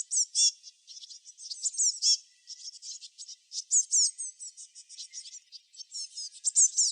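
Small songbirds chirping in quick, overlapping high-pitched notes, many of them short downward sweeps.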